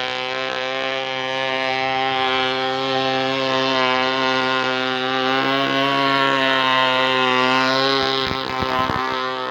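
RC boat's grass-cutter engine running steadily at high revs, its pitch drifting slightly up and back midway, with a few short knocks near the end.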